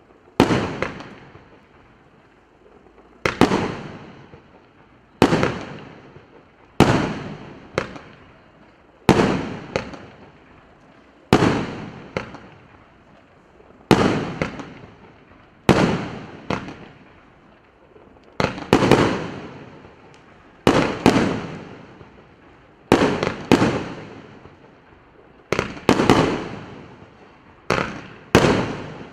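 A 25-shot, 1.2-inch-calibre fireworks cake (Russkaya Pirotekhnika RS8180) firing in sequence: sharp bangs about every two seconds, many coming in quick pairs, each one trailing off over about a second.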